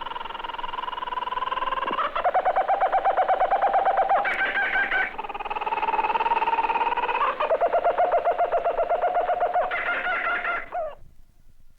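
A single cockatoo calling, alternating drawn-out caws with rapid rattling trills in a string of calls of about two seconds each. It stops shortly before the end.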